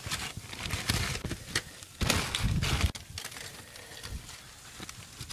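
Aluminium foil crinkling and crackling as gloved hands fold and squeeze it, with irregular small clicks and a louder stretch of rustling about two seconds in.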